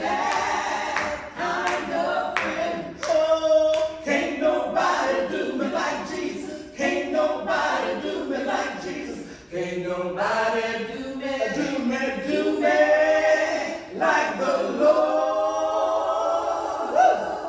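A small group of voices, led by a woman, singing a gospel praise song a cappella with no instruments. Hand claps keep time over the first few seconds.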